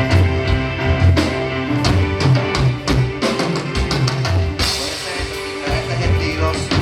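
Live band playing rock-style worship music: drum kit with regular kick and snare hits, bass and electric guitar, with a cymbal crash a little past halfway.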